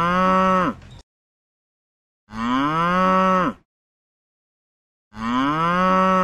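A cow mooing three times: three long moos, each rising in pitch and dropping off at its end, with silence between.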